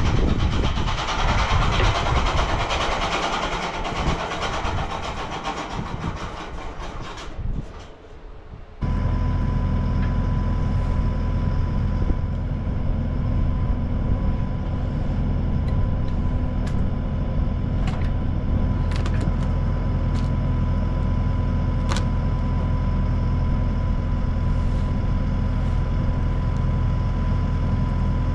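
Large home-built bandsaw mill running and sawing slabs from a walnut log. A rough cutting noise fades about 8 seconds in, then the sound changes abruptly to a steady machine hum with a constant whine.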